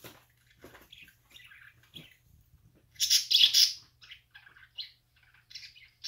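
Budgerigars chirping. A loud burst of rapid chirps comes about three seconds in, with scattered softer chirps before and after it.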